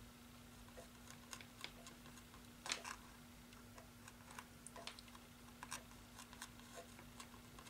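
Near silence: faint, irregular taps and clicks as a hand works a fine paintbrush in small strokes on a canvas, over a faint steady hum.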